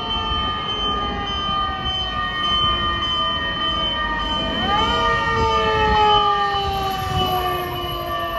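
Fire-truck motor sirens. One winds down in a slowly falling pitch, then about five seconds in a second siren winds up sharply and begins its own slow fall.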